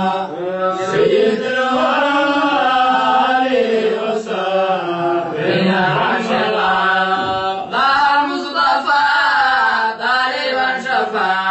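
Male voices chanting an Islamic qasida, a devotional poem, in long melodic phrases with short breaks for breath every few seconds.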